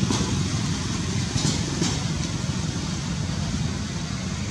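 Steady low rumble of engine traffic, with a few short sharp clicks about a second and a half to two seconds in.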